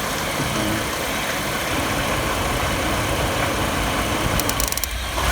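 Chevy 4.3 V6 engine idling steadily. Near the end a quick run of sharp snapping clicks, about half a second long: high voltage leaking from the ignition coil and arcing to a test light held near it.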